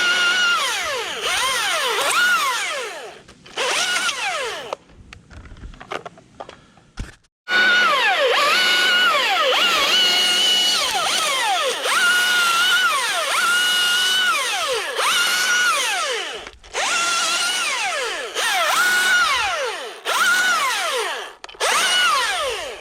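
Husqvarna T540iXP battery chainsaw's electric motor whining up to speed, holding its pitch, then spinning down, again and again in short trigger pulls. There is a quieter, broken stretch between about 3 and 7 seconds in, before the runs start up again.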